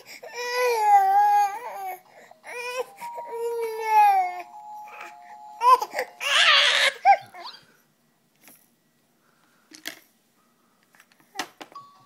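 Baby crying in frustration: two drawn-out wails, then a louder harsh scream about six seconds in, followed by a few faint knocks.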